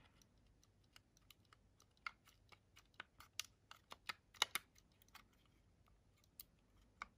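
Faint, irregular light clicks and taps from a RAK V2 Helium miner's finned metal housing being wiggled by hand, its base not pulling free.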